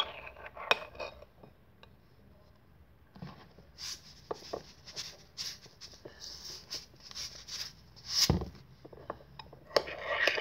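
Metal spoon clinking and scraping against a small bowl as a mixture is stirred. In the middle, a shaker is shaken over the bowl in quick hissing strokes, about two to three a second, which break off with one loud thump, and the spoon clinking starts again near the end.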